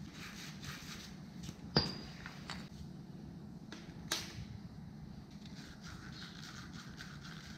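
Light handling noise of pipe pieces and parts being worked by hand for a mosquito-net frame, with two sharp clicks about two seconds apart, the first with a short ring.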